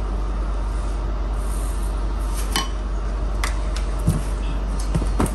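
Several sharp clinks of a spoon against a dish in the second half, as spoonfuls of spice are added to the beef, over a steady background hiss.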